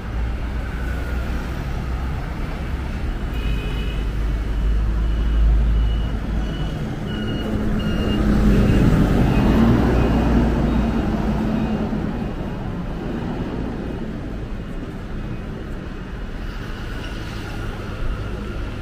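Street traffic with a steady low rumble; a motor vehicle passes close by, loudest about nine to ten seconds in, its engine hum rising and then fading. A few faint high beeps sound in the first half.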